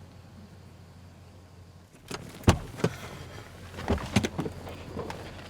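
Faint steady hum, then from about two seconds in a run of sharp clicks and knocks, several close together: the handle and latch of a car door being worked from inside a parked car.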